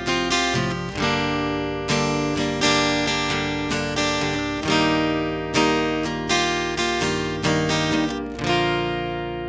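Acoustic guitar played direct through a FET preamp pedal: chords plucked and strummed with a fresh attack about every 0.7 s, the last chord left to ring out and fade near the end.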